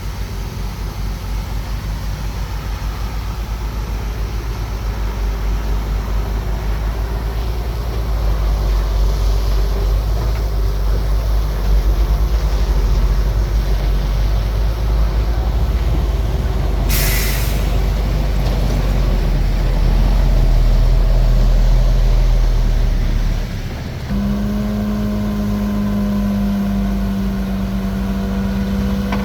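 Heavy diesel earthmoving machinery running under load with a deep, steady rumble that grows louder over the first several seconds. A short sharp air hiss comes about 17 seconds in. Near the end the engine note changes to a steadier pitched hum.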